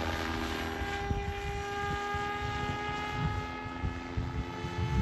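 SAB Goblin 700 Raw electric RC helicopter in flight: a steady rotor and motor whine with several tones that drift slightly in pitch, over a gusty low rumble of rotor wash.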